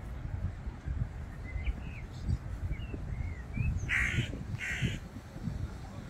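A crow cawing twice in quick succession, about four seconds in. Before it, a few short, high bird chirps.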